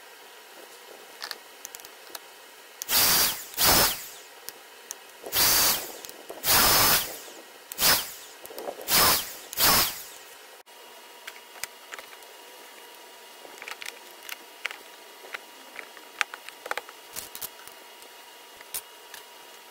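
A small power-tool motor switched on and off in about seven short bursts, then light clicks and taps of small parts being handled.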